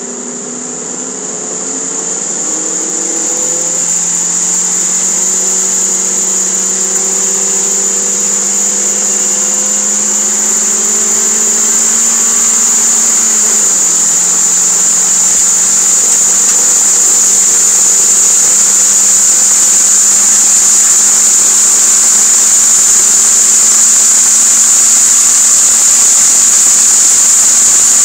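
Toyota MR2 Spyder's 1.8-litre four-cylinder engine accelerating, heard from inside the cabin: its note climbs slowly, drops at an upshift about halfway through, then climbs again. A steady high-pitched whine sits over it.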